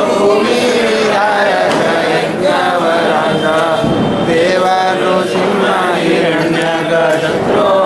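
Several voices chanting a devotional hymn together in a continuous, melodic chant.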